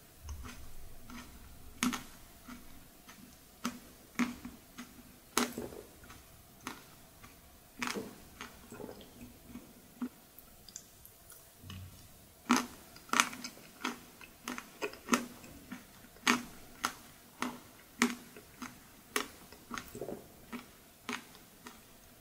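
Close-miked mouth sounds of eating soft ice cream: a string of sharp, wet lip smacks and mouth clicks, about one a second and more frequent in the second half.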